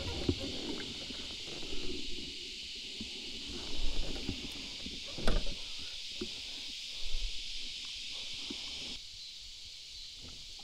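Scattered knocks and clunks of fishing tackle being handled in a plastic kayak, over a steady high hiss. The hiss drops abruptly about nine seconds in.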